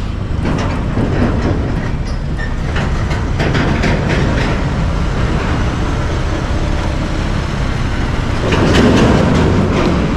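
Motorcycle ridden slowly, with its engine running and a steady rumble of wind and road noise. It grows louder about eight and a half seconds in.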